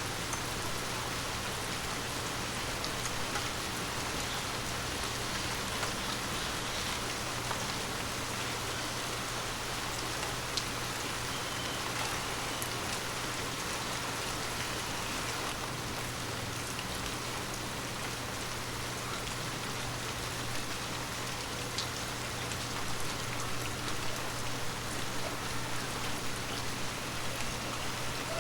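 Steady rain falling on forest leaves, an even hiss with scattered individual drops ticking on the leaves, a little busier near the end.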